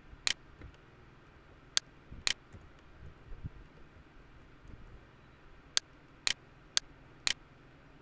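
About seven sharp, irregular clicks of a computer mouse and keyboard during text editing, some single and some doubled.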